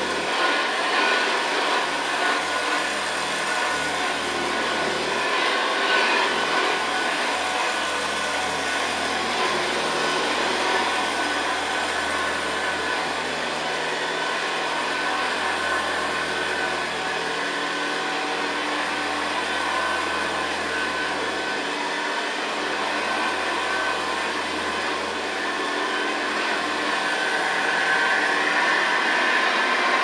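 1959 Hoover Senior 638 upright vacuum cleaner running steadily while it is pushed back and forth over carpet, its beater bar working the pile. It gets slightly louder near the end.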